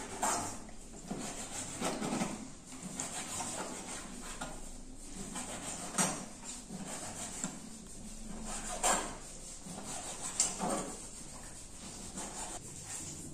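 Kitchen knife slicing raw beef steak on a plastic cutting board, with soft cutting and rubbing and a few sharp knocks of the blade against the board.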